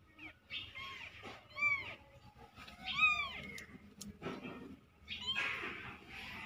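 Young kittens meowing: several short, high-pitched mews that rise and fall, the loudest about three seconds in.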